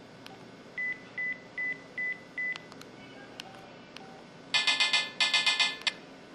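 IM-6200 mobile phone's built-in sound effects: five short identical beeps at one pitch, then a bright electronic jingle of several quick notes.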